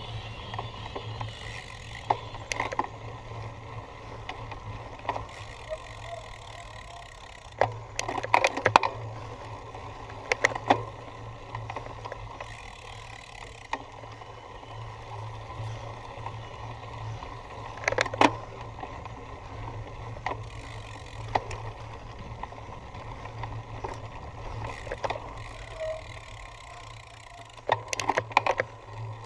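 Cyclocross bike ridden over rough ground: a steady low rumble of tyres and riding noise, broken by sharp rattling knocks as the bike jolts over bumps, in clusters several times.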